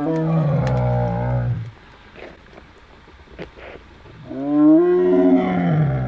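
Siberian tiger roaring: a long call that ends under two seconds in, then a second long call starting a little after four seconds in.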